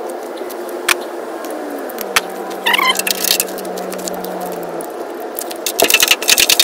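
Metal hardware clinking a few times, then a ratchet wrench clicking rapidly near the end as the winch plate bolts are run in, over a steady low hum.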